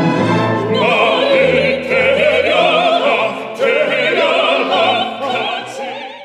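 Operatic singing with wide vibrato, several voices at different pitches, over an orchestra with sustained low notes; the music drops away near the end.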